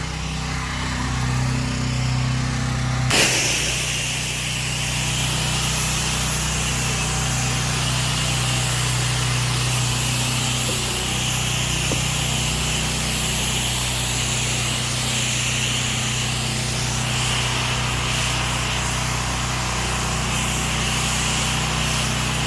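Pressure washer's engine running steadily; about three seconds in, the spray opens and a jet of water hisses steadily against the house.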